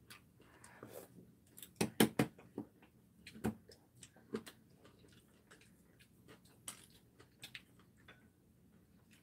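Scattered clicks and knocks of a plastic ketchup squeeze bottle and tableware being handled, the loudest a quick cluster of knocks about two seconds in.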